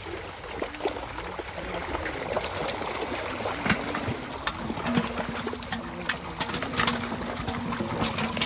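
Water splashing and slapping as a crowded netful of fish thrash at the surface, with many short sharp splashes throughout. Low cooing calls rise and fall from about two seconds in.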